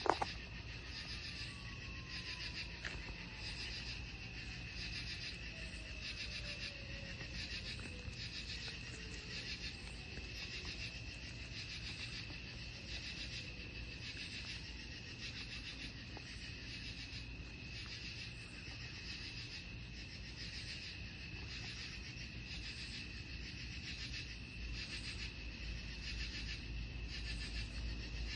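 Night insect chorus: a steady high-pitched trill, with another insect's chirp repeating about once a second above it.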